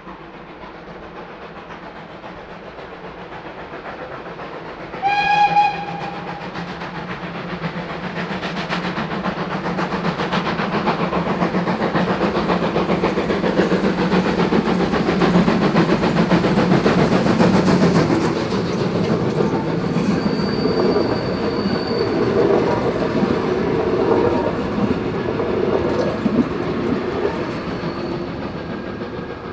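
Steam tank locomotive gives one short whistle blast about five seconds in, then approaches and passes hauling coaches, the sound swelling to its loudest at mid-pass. The coach wheels clatter over the rail joints as the train goes by, fading near the end.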